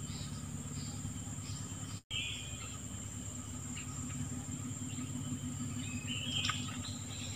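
Forest ambience: a steady high-pitched insect drone over a steady low hum, with short chirps about two seconds in and again near the end. The sound drops out for an instant about two seconds in.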